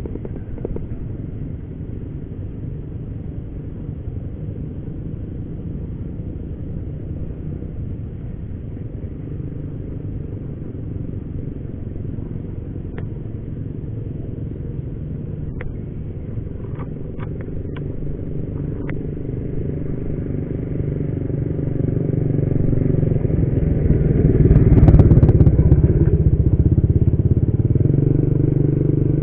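Steady low rumble of a motor vehicle engine. It swells louder late on and peaks before easing off, with a few faint clicks midway.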